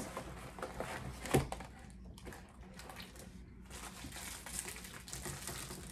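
Faint rustling and crinkling from handling snack food at a desk, with one light knock about a second and a half in.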